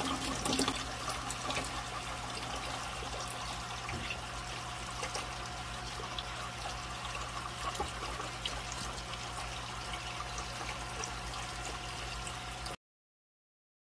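Aquarium water trickling and bubbling from the tank's filter, a steady wash of water noise with small pops and a faint steady hum under it. It cuts off suddenly near the end.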